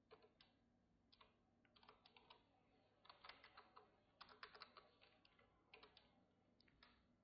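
Faint computer keyboard typing: irregular runs of quick keystrokes with short pauses between them.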